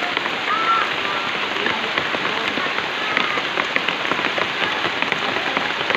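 Steady, dense patter of falling water drops, like rain on a surface, with many small drip-like clicks.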